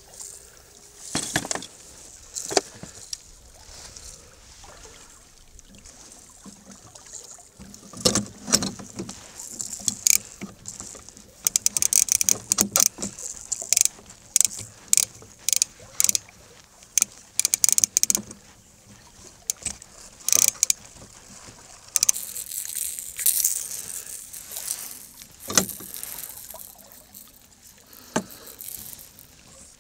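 Fishing tackle being handled in a metal boat: a spinning reel being worked and gear clicking and knocking against the hull. The sharp clicks come thick in the middle, followed near the end by a stretch of hiss.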